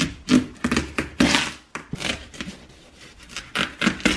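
Kitchen knife sawing through a whole watermelon's rind, a run of rasping back-and-forth strokes with a longer stroke about a second in.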